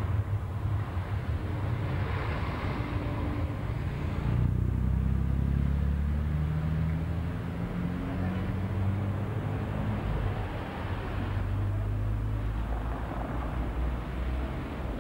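Silver first-generation Paris tram (a TFS car) running on the street track, with a steady low rumble. About four seconds in, a hum joins it and rises in pitch for several seconds.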